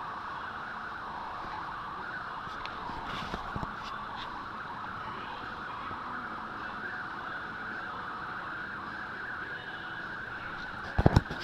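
Steady, even rushing background noise at a constant level, with a few faint clicks a few seconds in and a quick cluster of sharp knocks near the end.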